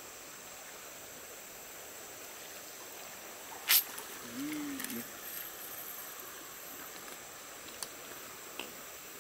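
Shallow river water running steadily over gravel. A sharp knock comes a little under four seconds in, followed by a brief low voice-like hum, and there are two faint clicks near the end.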